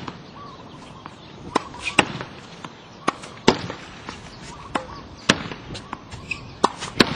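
Tennis racket striking balls and balls bouncing on a hard court during forehand practice. The sharp pops come mostly in pairs about half a second apart, a pair every second and a half or so.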